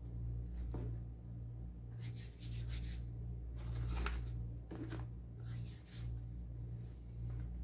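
Foil wrapper crinkling and rustling in several short bursts as it is handled and opened, over a steady low hum.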